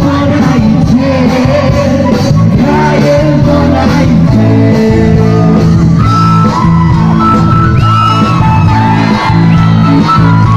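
Loud music with singing, with shouts from a crowd mixed in.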